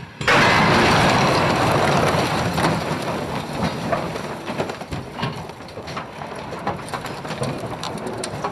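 A rail vehicle slamming into an obstacle in a crash test: a sudden loud crash, then a long noisy rush of crunching with scattered sharp cracks that slowly fades.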